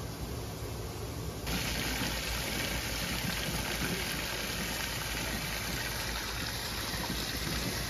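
Garden hose running water into a shallow inflatable paddling pool: a steady gushing hiss, louder from about a second and a half in.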